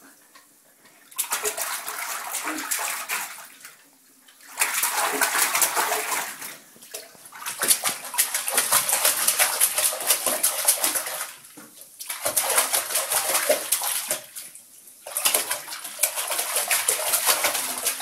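A baby splashing bathwater with both hands, slapping the water surface in a tub. It comes in bouts of a few seconds, with short pauses between them.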